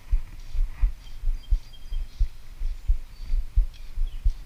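Irregular low thumps and rumble on the microphone, roughly two a second, with a few faint high chirps.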